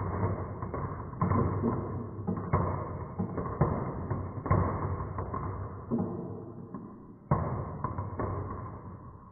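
Marbles rolling and clattering down a wooden marble run: repeated rolling swells about a second apart, each with small knocks, fading towards the end.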